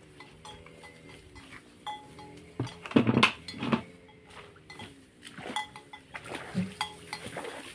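Handling noise as a man settles in with an acoustic guitar and a sheet of paper: scattered taps and clicks, with a cluster of knocks and clatter about three seconds in that is the loudest sound.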